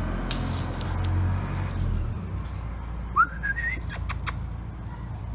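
A person whistling once, a short rising whistle a little after three seconds in, over a low background rumble.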